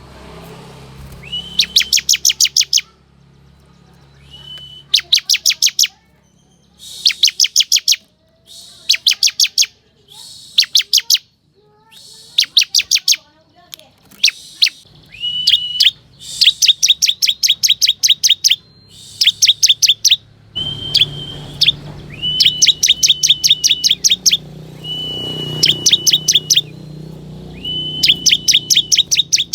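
Bar-winged prinia (ciblek) calling in bursts of rapid, high chirps. Each burst has about eight to twelve notes and they repeat every second or two. Many bursts start with a short steady whistled note.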